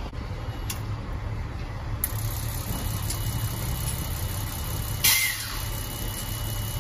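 Truck engine idling with a steady low rumble. About five seconds in, a brief loud hiss cuts across it.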